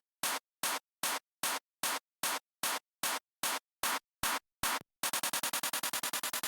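A soloed electronic clap sample playing a steady pattern in a dance-track build-up, one short sharp hit about every 0.4 s. About five seconds in, it speeds up into a fast roll of about ten hits a second.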